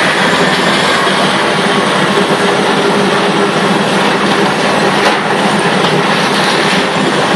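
Volvo high-reach excavator running steadily, a loud, even machinery din with a low steady hum under it.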